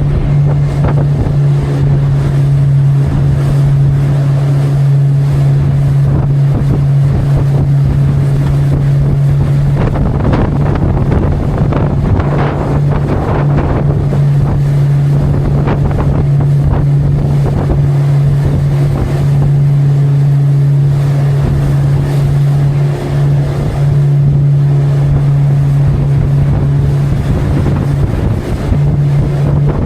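Motorboat engine running at a steady drone, with wind buffeting the microphone and water rushing past the hull.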